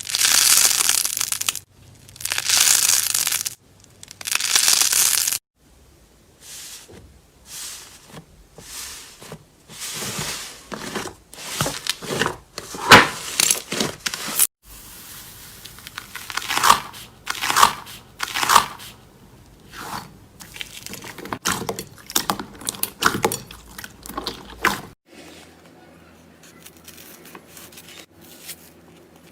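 Slime being squeezed and pressed by hand, giving crackling, squishing noises: three long loud strokes at the start, then a run of shorter ones. About 25 seconds in it drops to quieter handling over a faint low hum.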